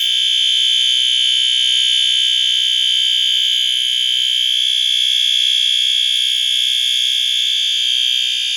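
Fire alarm horn on a Notifier AFP-200 fire alarm panel sounding California code. A loud, steady, high-pitched tone holds without a break: the long 'on' part of the ten-seconds-on, five-seconds-off pattern.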